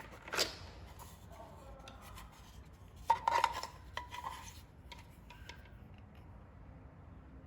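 Hard objects being handled: scattered clicks and knocks, with a brief clatter that rings a little about three seconds in, typical of unpacking a cordless drill and its accessories.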